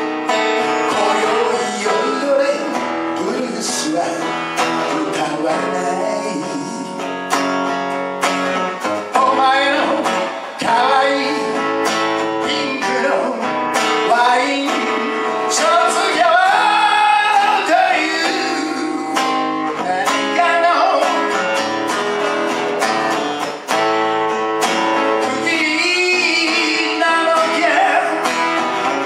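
A man singing live with his own strummed acoustic guitar, voice and guitar together.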